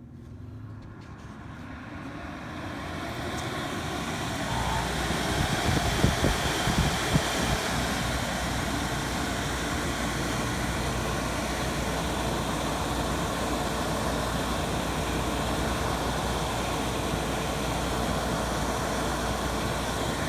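Dri-Eaz LGR 3500i dehumidifier just switched on: its fan spins up over the first few seconds into a steady rushing run. A low hum joins about four seconds in, and there are a few knocks around six to seven seconds.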